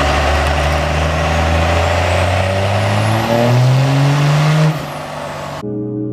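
Straight-piped 12-valve Cummins diesel in a Dodge Ram pickup running loud and accelerating, its engine note rising from about three seconds in. It cuts off abruptly near the end, giving way to ambient music.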